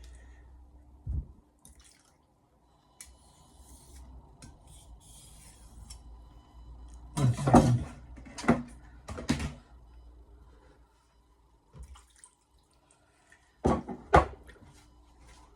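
Misono Japanese kitchen knife stropped on a wet whetstone, with faint scraping strokes. Several sharp knocks and clinks come in a cluster past the middle and twice more near the end.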